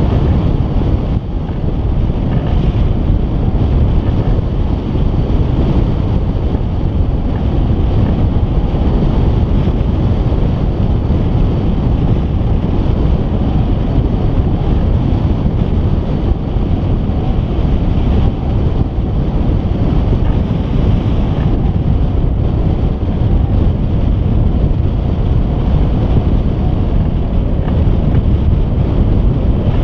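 Loud, steady rush of flight airflow buffeting the microphone of a camera mounted on a hang glider's wing, heaviest in the low end.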